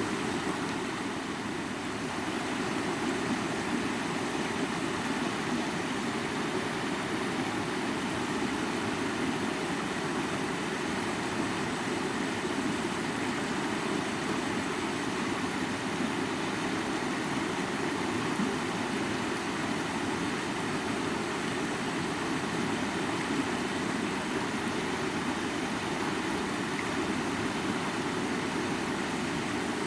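A mountain river flowing: a steady, even rush of water.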